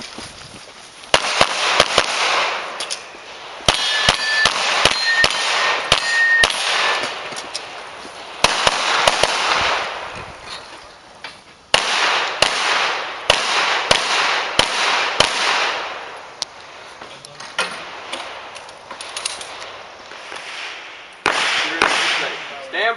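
Shots from a 9mm Springfield XDm 5.25 pistol fired in quick strings with pauses between them, and steel targets ringing briefly when hit a few seconds in.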